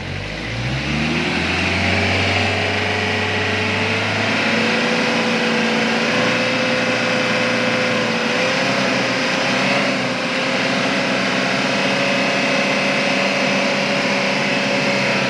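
Hyundai Grace van engine revved up within about a second and held at high revs, steady apart from a slight dip near the middle. It is being run hard to burn off its black exhaust smoke after an oil additive treatment.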